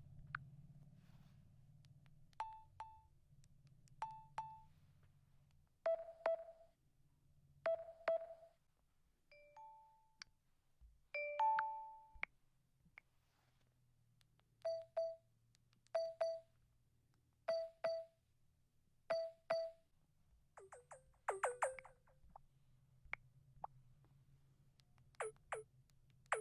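Samsung Galaxy phone's volume-button feedback sounds from the One UI 7 and One UI 6 system sound themes: short pitched beeps with clicks, mostly in quick pairs, repeated every second or two. About two-thirds through comes a quicker run of higher, sharper tones.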